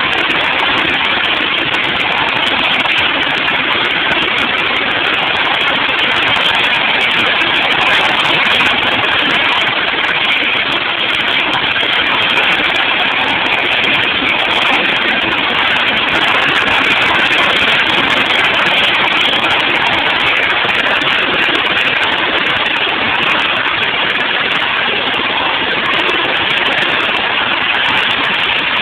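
Eurocopter AS350 helicopter running steadily, a constant even noise without breaks.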